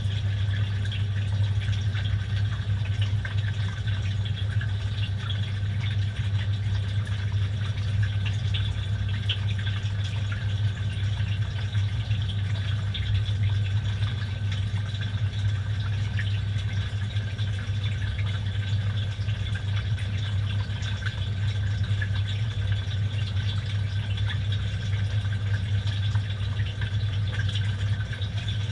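Inside a washing machine during an express wash: water splashing and dripping in the drum over soapy laundry, over a steady low hum from the machine.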